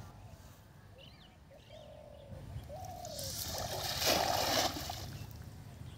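A thrown cast net's weighted rim splashing down on pond water: a rushing, splashing hiss that builds about three seconds in, is loudest around four seconds and dies away within two seconds. Before it, a few low cooing bird calls.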